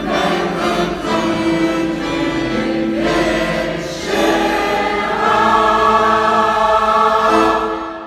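Mixed amateur choir of men and women singing a Russian song in several parts, with held chords; the final chord dies away near the end.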